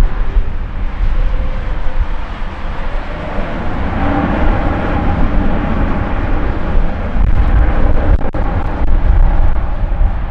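Airbus A350-900's Rolls-Royce Trent XWB jet engines at takeoff power: a loud, continuous deep rumble, with a steady engine tone coming in about four seconds in.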